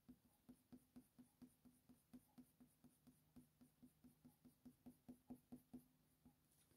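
Faint short strokes of a Faber-Castell Polychromos coloured pencil on hot-press watercolour paper, about four light ticks a second, a little louder near the end.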